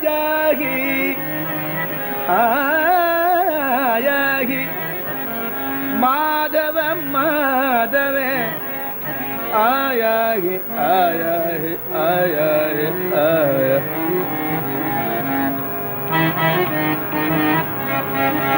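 A male voice sings an ornamented Carnatic devotional melody in long, gliding, bending phrases over a steady held-note instrumental accompaniment. The voice stops about 14 seconds in, leaving the accompaniment sounding alone.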